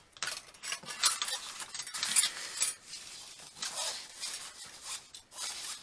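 Small metal beauty tools, a rose-gold eyelash curler and lash applicator, clinking and rustling as they are handled and pushed into a small mesh tool pouch. Irregular sharp clicks, the loudest about a second and two seconds in.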